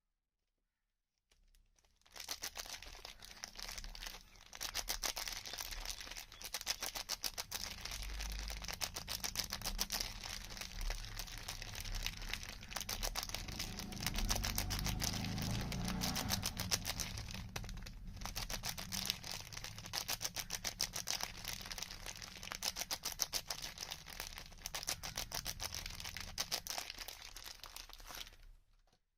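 Soap packaging crinkling and rustling as it is unwrapped by hand: a dense run of crackles that starts about two seconds in, breaks off briefly twice, and stops near the end.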